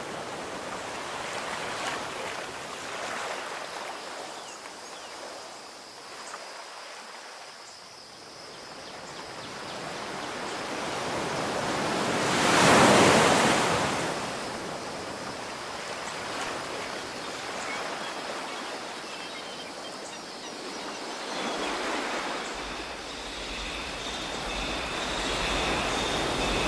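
Rushing noise of surf, swelling and fading over several seconds, loudest about halfway through.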